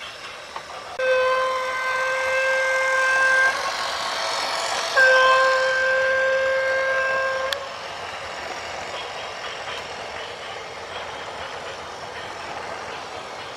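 A vehicle horn sounding two long steady blasts, the second cutting off abruptly, over steady background noise.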